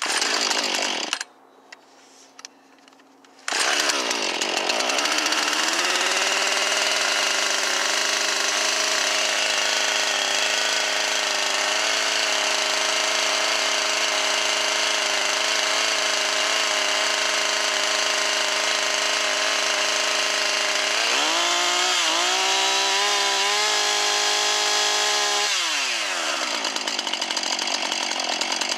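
Husqvarna 445 two-stroke chainsaw cold-started in deep frost: a loud burst of about a second as it fires, a short lull, then it catches about three and a half seconds in and runs steadily at a high fast idle. Some twenty seconds in the pitch drops and wavers unevenly for a few seconds, then falls again; it runs a little rougher than usual from the cold.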